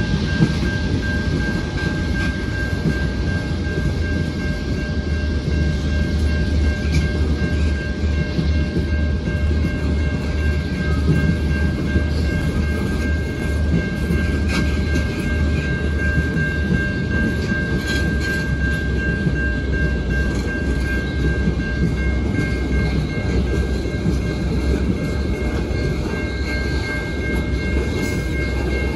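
Freight train tank cars rolling past close by: a steady low rumble of wheels on rail with occasional sharp clacks. Two steady high-pitched tones ring over it.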